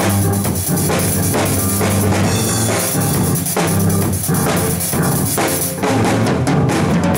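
Live band music led by a drum kit playing a steady beat, with bass drum and snare over low sustained notes. Near the end the strikes come in a quicker run, like a drum fill.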